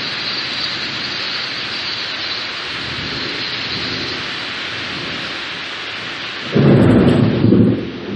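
Steady rain falling, and about six and a half seconds in a loud, low clap of thunder that lasts just over a second.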